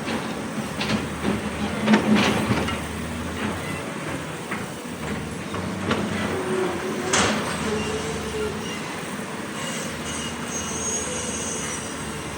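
Hydraulic excavator working: diesel engine running steadily under load, with a series of sharp metallic clanks and knocks, the loudest about two seconds and seven seconds in, and a faint high squeal near the end.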